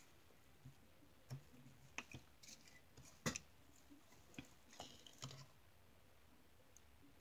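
Small nail-art tools being handled, picked up and set down on a table: a scattering of light clicks and taps, the sharpest a little after three seconds in, over otherwise near-silent room tone.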